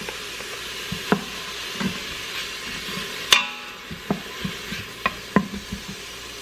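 A wooden spoon stirs onion and garlic frying in the stainless steel inner pot of an electric pressure cooker. The spoon knocks sharply against the pot again and again, over a steady sizzle. The loudest knock, a little over three seconds in, rings briefly off the metal pot.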